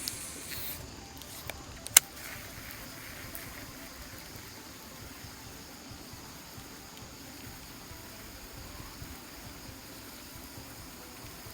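Faint steady background hiss, with a single sharp click about two seconds in.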